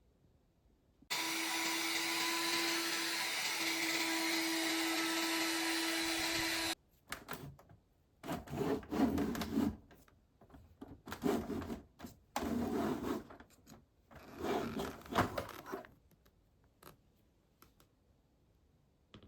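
A small vacuum cleaner switched on and running steadily with a hum for about five and a half seconds, then cut off abruptly. It is followed by a series of short rough noises, each about a second long, at irregular intervals.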